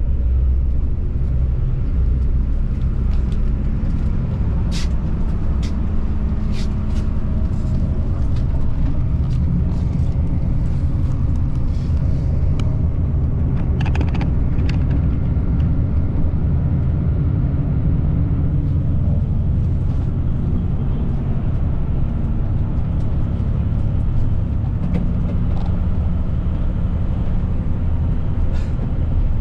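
Steady low rumble of a Hino common-rail diesel coach's engine and tyres heard from inside the passenger cabin while it cruises, with scattered light clicks and rattles.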